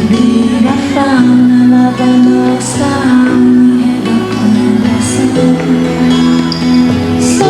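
Live concert band music: steady held chords and bass notes changing every second or so, with a few cymbal-like strokes up high.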